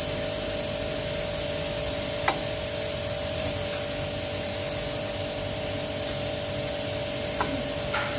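Steady hiss with a faint steady hum underneath, and two short light clicks, about two seconds in and near the end, as a brake pad is fitted into its caliper bracket.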